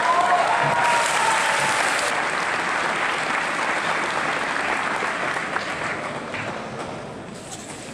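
Audience applauding: it starts suddenly, holds steady for several seconds, then fades out near the end.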